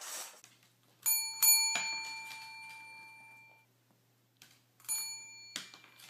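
A chrome service bell is struck by a dog, giving a few quick dings about a second in that ring out for about two seconds. A further ding near the end is cut off abruptly.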